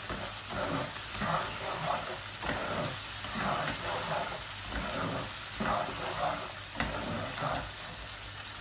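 A plastic slotted spatula stirring thick blended-tomato curry gravy in a non-stick frying pan, in wet scraping strokes about every half second to second. The gravy sizzles steadily in hot oil as it cooks down.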